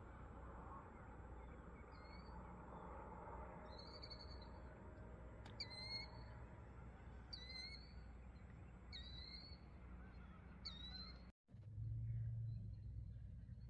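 A bird calling repeatedly: a short, high, hooked note about every second and a half, some five times, over a faint steady low hum. The calls stop at a cut near the end, and a louder low hum follows.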